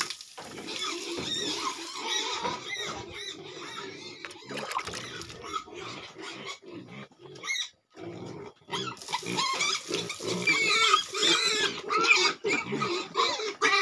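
Several domestic pigs grunting and squealing, the squeals growing louder and more frequent after a brief lull in the second half; the pigs have not been fed yet this morning, and this is typical food-begging noise.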